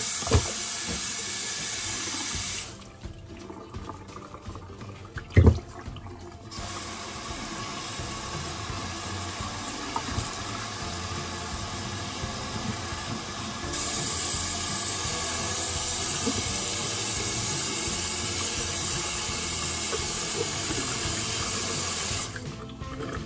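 Kitchen tap water running into a sink over a raw turkey being rinsed. The flow sound falls away for a few seconds about three seconds in, with one sharp thump, then returns, louder in the second half, and stops shortly before the end.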